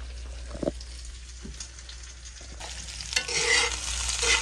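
Food frying in a pan on the stove, with a steady sizzle, a couple of light knocks in the first two seconds, and the sizzling growing louder about three seconds in.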